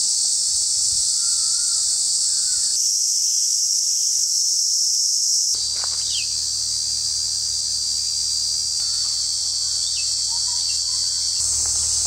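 Cicadas singing: a loud, continuous, high-pitched buzzing drone that holds steady throughout.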